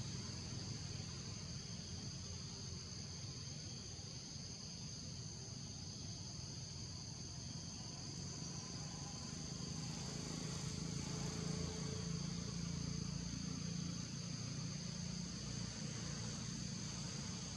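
Steady high-pitched drone of a forest insect chorus in two close pitches, with a low rumble underneath that swells past the middle.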